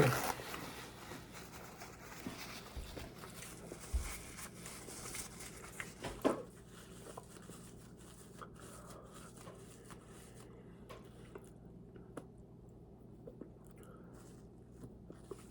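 A person chewing and eating food close to the microphone, with small scattered mouth clicks and two sharper knocks about four and six seconds in; quieter in the second half.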